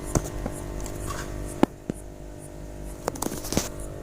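Small aquarium's pump humming steadily, with several sharp clicks heard over it: the strange noise from the tank.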